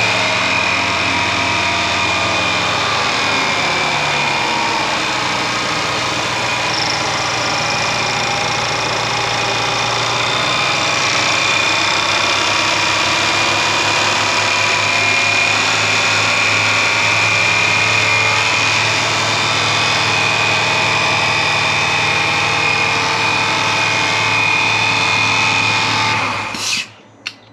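Freshly rebuilt 5.0-litre V8 of a Range Rover Sport idling just after its first start, with a steady high whine over the engine note. The note wanders a little in the first several seconds, then holds steady until the sound cuts off abruptly near the end.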